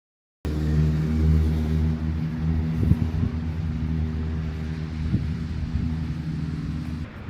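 An engine running steadily nearby: a loud low hum with a few short knocks, starting abruptly and falling away sharply near the end.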